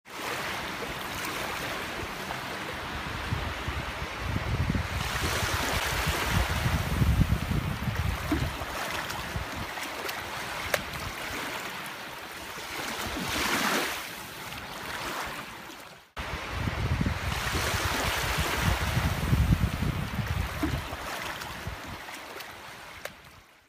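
Small waves washing in at a shoreline, with wind buffeting the microphone in swelling low rumbles. The sound drops out briefly about sixteen seconds in, then carries on.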